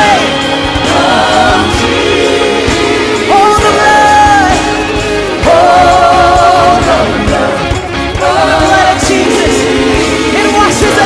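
Live contemporary worship band music, with several voices singing long held notes with vibrato over the band.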